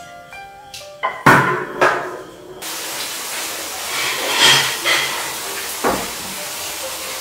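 Background music ends in the first second, followed by two sharp, loud clacks. Then comes a steady hiss of room noise, with a dull knock near the end as a stack of ceramic bowls is set down on a wooden table.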